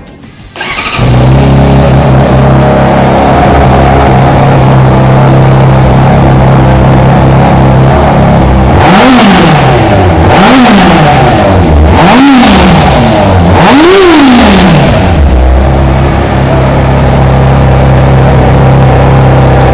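Honda CBR600RR's 599cc inline-four DOHC engine on its stock exhaust, starting up about a second in and idling steadily. It is then revved four times, each rev rising and falling back, the last the highest, before it settles back to idle.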